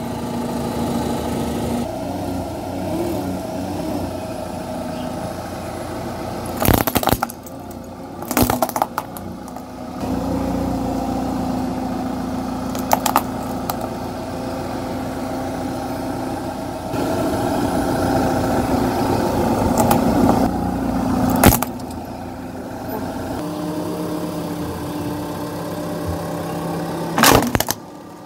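Car engine running at crawling speed while its tyre rolls over and crushes plastic objects, with several loud, sharp cracks as they break; the last comes near the end, as a pink plastic item is flattened.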